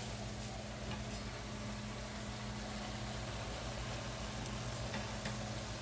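Steady low hum under a soft, even hiss of beef cooking in a pot on an electric stovetop, with a few faint ticks.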